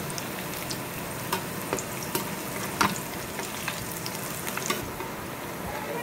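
Paneer pakoras in gram-flour batter deep-frying in hot oil in a kadhai: a steady sizzle with scattered sharp clicks and pops, as a slotted spoon stirs and turns them to fry both sides.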